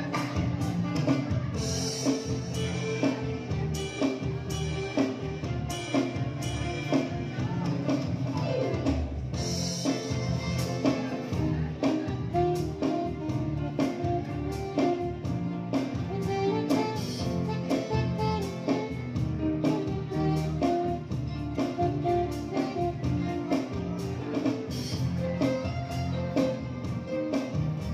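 Live instrumental ensemble music: violins and acoustic guitar playing a tune over bass and a steady electronic drum beat.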